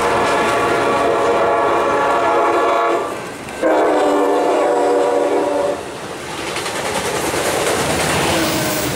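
A diesel locomotive's multi-note air horn blows a long blast that breaks off about three seconds in, then a second blast of about two seconds. Under it is the steady rumble and clatter of loaded double-stack container cars rolling past on steel wheels, which carries on alone after the horn stops.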